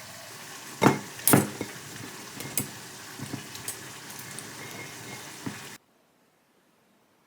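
Pasta sizzling as it reheats in a pan, with a few sharp clinks and knocks of a utensil stirring it, loudest about a second in. The sizzle stops abruptly near the end.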